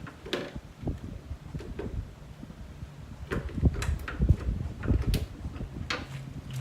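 A run of irregular knocks, clicks and light clatter, like hard parts and tools being handled and set down, with the sharpest knocks in the middle of the stretch.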